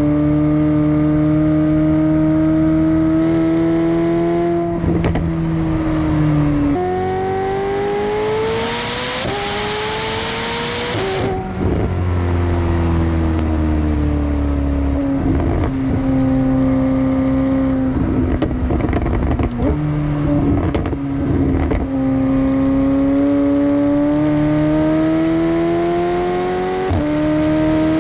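McLaren 750S twin-turbocharged 4.0-litre V8 running under acceleration and easing off. The engine note climbs, drops abruptly at gear changes, and slowly falls back between pulls. A rushing hiss lasts about two seconds partway through.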